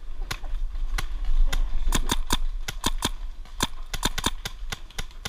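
Paintball markers firing: a run of sharp, irregularly spaced pops, about three to five a second, over a low steady rumble.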